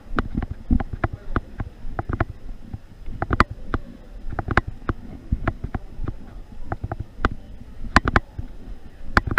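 Thumps and clicks from a body-worn camera being jostled as its wearer walks, uneven knocks about two to three times a second, some heavy and low, some sharp and clicky.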